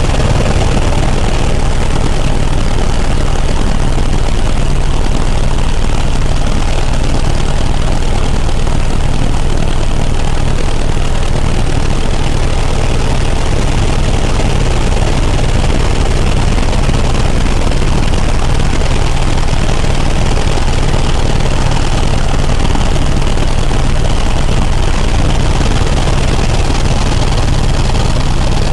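Helicopter in flight, heard from inside the cabin: the engine and rotors make a loud, steady drone, heavy in the low end, that does not change.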